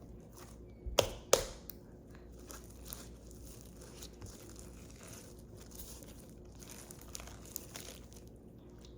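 Slime being squeezed and worked by hand: a steady run of small sticky crackles and pops, with two louder snaps about a second in.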